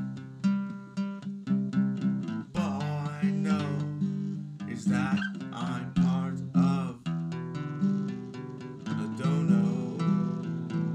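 A song played on strummed acoustic guitar, with a wavering singing voice over it in places.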